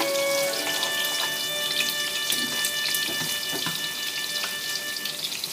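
Tofu cubes frying in hot oil in a pan, a steady sizzle with fine crackling.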